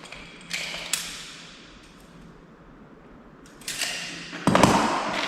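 Handling noises from work on a door: a short scrape with a sharp click about half a second in, then a louder thud a little before the end.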